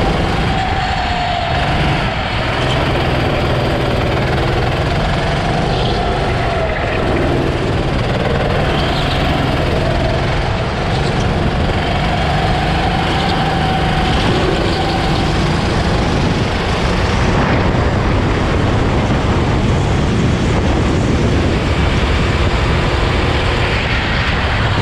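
Go-kart engine running hard at speed, its pitch rising and falling as the kart brakes for corners and accelerates out, over a steady rush of noise.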